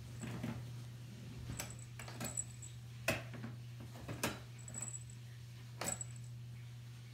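Light metallic clicks and small jingles, about half a dozen spread through, the two sharpest near the middle, as a Maine Coon cat paws at a catnip satchel hanging on a pet carrier's wire door.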